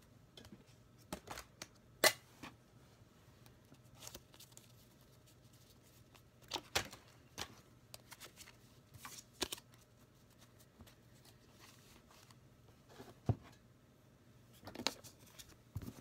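Scattered light rustles and taps of Pokémon trading cards being handled, a few at a time with pauses between.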